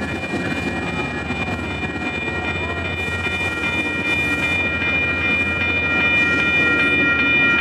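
FrontRunner commuter train's bi-level coaches rolling through a grade crossing, with a steady low rumble and clacking of wheels on rail. Over it the crossing's warning bell rings, about two strikes a second. The rumble grows a little louder toward the end.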